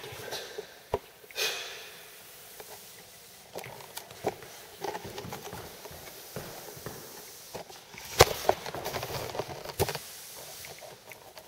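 T-bar applicator pad dragged through wet floor finish on a timber floor: soft swishes with scattered knocks and clicks from the bar and handle, the loudest knock about two-thirds of the way through.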